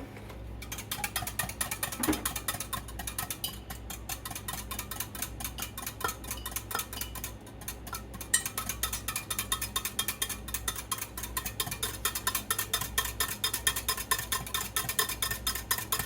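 A utensil stirring in a Pyrex glass dish, dissolving Jello powder in hot water. It makes quick, regular clinks against the glass that get louder about eight seconds in.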